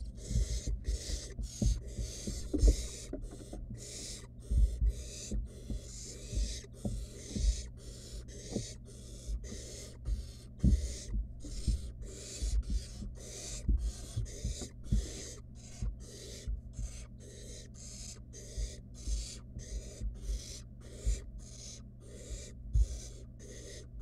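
Barn owl nestlings giving their rasping, hissing begging calls in a steady rhythm of about two to three hisses a second. Irregular dull knocks and thuds from the chicks moving about the wooden nest box sound underneath, over a steady low hum.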